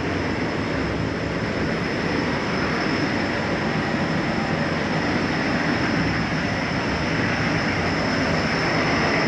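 Steady rumble of idling semi-truck diesel engines, with a thin steady high whine above it.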